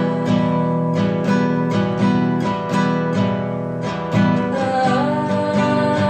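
Music: an acoustic guitar strummed in a steady, even rhythm.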